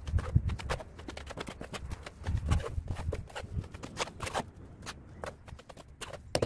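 Mason's steel trowel scraping and scooping mortar in a mortar tub, a run of irregular scrapes, clicks and dull knocks, with a sharp click near the end.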